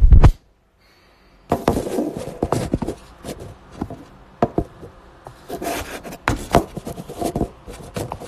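Smartphone being handled and moved about, its microphone picking up handling noise: a loud bump at the start, then, after about a second of quiet, a run of rubbing, scraping and sharp knocks that dies down near the end.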